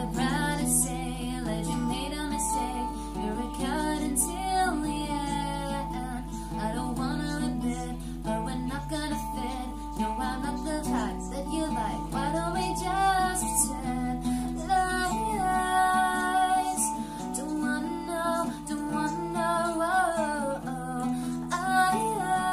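Acoustic guitar strummed and picked, with a woman singing along to it.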